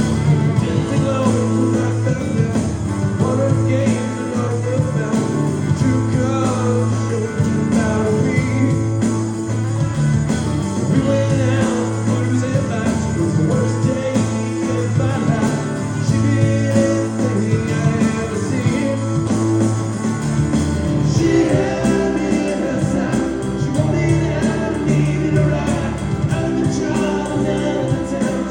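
Live rock band playing a song, with singing over guitar and bass; the bass line changes about 20 seconds in.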